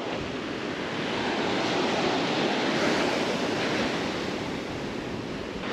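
Surf breaking and washing up on a sandy beach, a steady rush of noise that swells about two seconds in and eases off near the end, with wind on the microphone.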